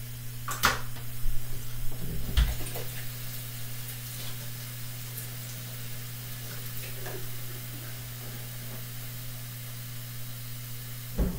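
Shrimp, spinach and couscous in a stainless skillet sizzling softly on the stove, over a steady low hum. A few sharp clicks in the first couple of seconds.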